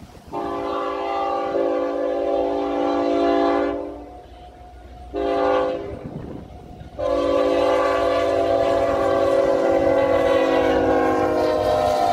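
CSX diesel locomotive's multi-chime air horn blowing a long blast, a short blast and another long blast, the last dropping slightly in pitch near the end as the locomotive comes past. The rumble of the train runs beneath.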